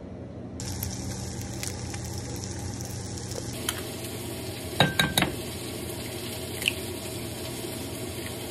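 Food sizzling steadily in a frying pan. About halfway through come three quick sharp taps, eggs being cracked against the rim of a bowl.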